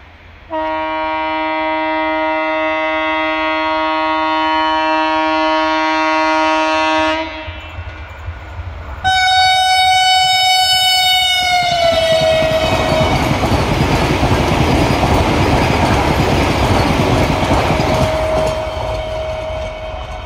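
Vande Bharat Express electric trainset sounding two long horn blasts as it approaches; the second one drops in pitch as the train passes. Then comes the loud rush and rail clatter of the trainset going by at speed, fading near the end.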